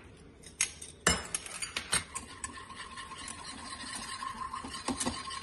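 Wire whisk clinking and scraping against a nonstick frying pan while flour is whisked into melted butter to make a roux. A few sharp clinks come in the first two seconds, then a steady run of quick small taps and scrapes, with a faint steady whine in the second half.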